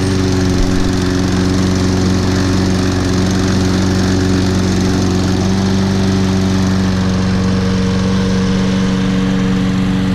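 Toro Personal Pace walk-behind mower's Briggs & Stratton 7.25 gross-torque engine running steadily at an even speed.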